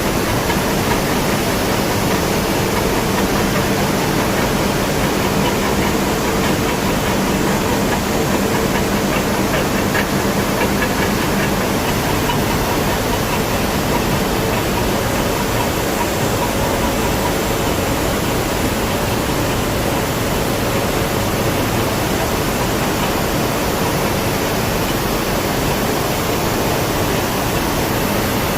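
Steady, loud roar of an industrial strip-processing furnace line, with a faint hum of several steady tones underneath.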